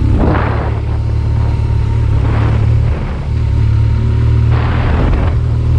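BMW motorcycle engine running steadily while riding a rough, potholed road, with a brief dip in engine level about three seconds in. Several short rushes of noise come through over the engine.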